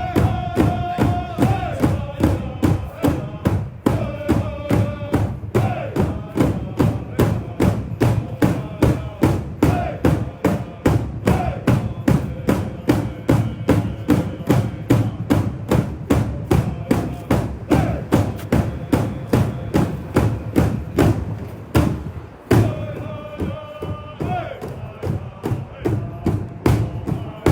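Native American drum beaten in a steady, even beat while a voice sings an honoring song, the sung phrases rising over the drum near the start, about four seconds in and again near the end.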